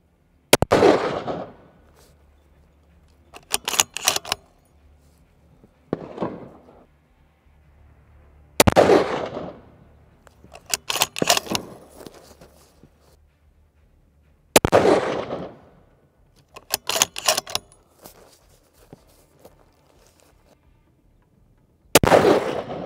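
Ruger Precision Rifle in .338 Lapua Magnum fired four times, one loud shot every six to eight seconds, each with a ringing tail. A few seconds after each of the first three shots comes a quick run of metallic clacks, the bolt being cycled to chamber the next round.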